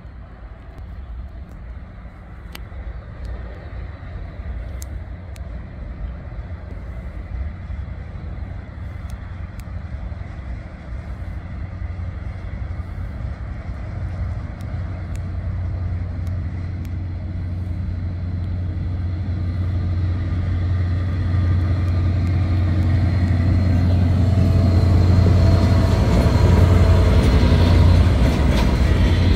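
Vossloh G 1000 BB diesel-hydraulic locomotive hauling tank wagons approaches, its engine's low drone growing steadily louder until it draws alongside near the end, when wheel and rail noise rises with it.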